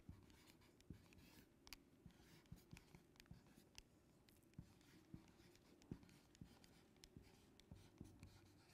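Faint ticks and short strokes of a marker writing on a board, close to silence.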